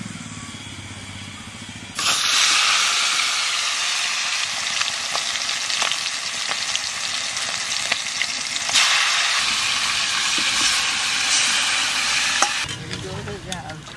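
Marinated chicken pieces sizzling as they deep-fry in hot oil in a metal wok, with a few faint clicks of a spatula. The sizzle starts suddenly about two seconds in, grows louder about nine seconds in, and cuts off suddenly near the end.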